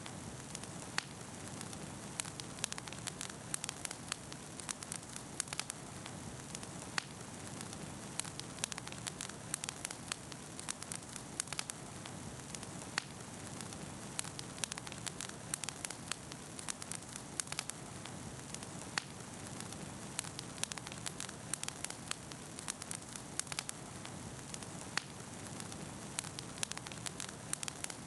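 Beach bonfire crackling, with frequent sharp irregular pops over a steady hiss of burning.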